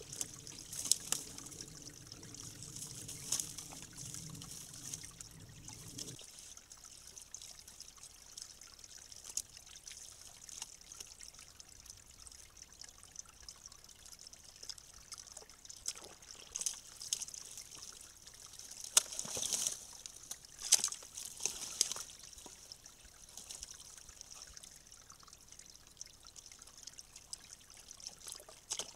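Faint, steady trickle of water at a beaver dam, with short rustles and scrapes here and there, clustered between about 16 and 22 seconds in, as a beaver handles sticks and mud on the dam.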